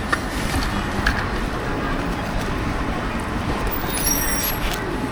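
Steady street noise with passing traffic, with a short high-pitched electronic beep about four seconds in.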